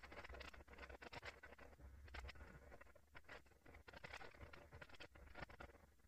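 Faint, irregular scratching and dabbing of paint being worked onto a stretched canvas on an easel, with many short strokes a few times a second.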